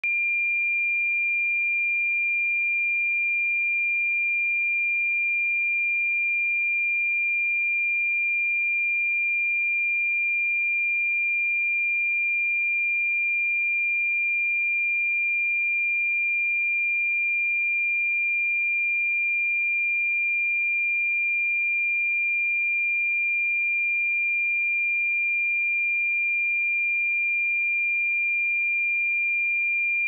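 A pure 2394 Hz sine-wave test tone, one steady high-pitched note held at a constant level.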